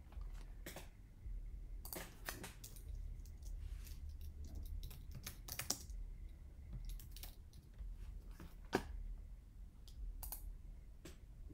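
Typing on a computer keyboard: irregular key clicks with a few louder strokes, over a low steady hum.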